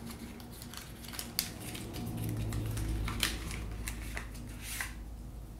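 A small cardboard box being pulled and torn open by hand: scattered clicks, scrapes and rustles of card, with a few sharper snaps.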